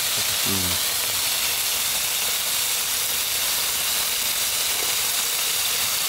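Slices of raw pork belly sizzling in a frying pan on a portable gas stove: a steady, even hiss.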